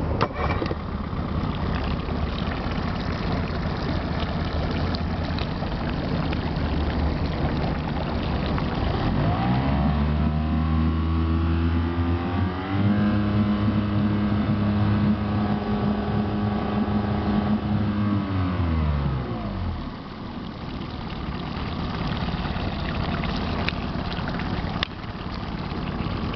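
Small outboard motor idling, then revving up with a rising tone about ten seconds in. It holds the higher revs as the boat gets under way, then drops back to idle after about twenty seconds. A sharp click at the start and another near the end.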